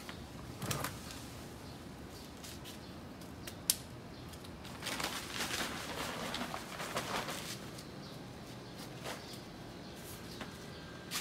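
Broom sweeping on paving: a run of short, scratchy rustling strokes about halfway through, with a few light clicks around them.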